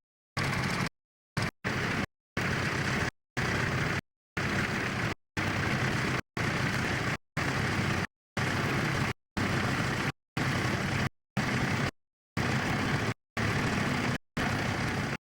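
Tractor engine running, heard in short pieces: the sound cuts out completely about once a second. The dropouts are a fault in the transfer of the old video's sound track.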